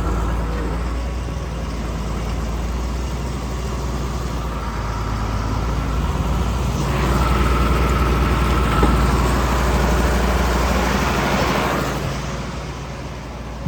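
International Harvester 856 tractor engine running as it pulls a grinder mixer up alongside a wagon. It grows louder about halfway through, with a thin steady whine over the engine, then eases off near the end.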